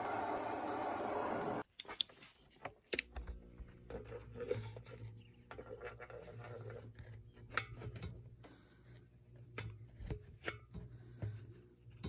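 A propane torch flame hisses steadily and stops abruptly just under two seconds in. Then a soldering iron's tip scrapes and taps against the melting lead patch and copper inside the extinguisher tank, with scattered light clicks over a low hum.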